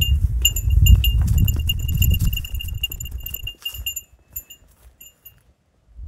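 A small metal bell jingling in quick, irregular strikes, with wind rumbling on the microphone; the rumble eases after a couple of seconds and the jingling stops about five seconds in.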